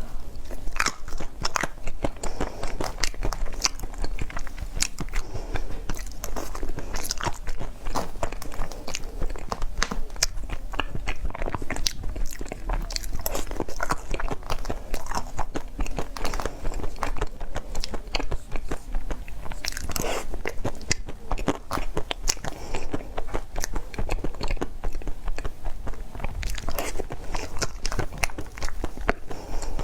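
Close-miked eating sounds of a person biting into and chewing dessert, with a dense run of crisp crunches and clicks.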